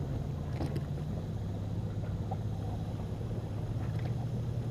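A steady low motor hum aboard a bass boat, with a few faint clicks about half a second in and again near the end as a small smallmouth bass is handled at the boat.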